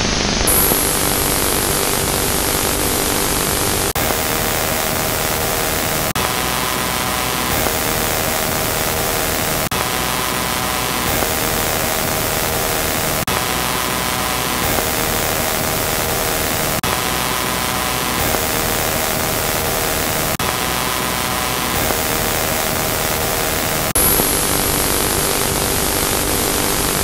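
Static hiss from a scrambled satellite TV signal. Faint steady tones sit under it and shift every second or two, with a small click at each shift.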